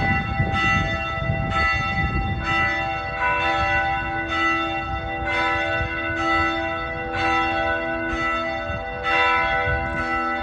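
Church bells ringing in a peal, several bells struck one after another at about two strokes a second, their tones ringing on and overlapping, over a low rumble.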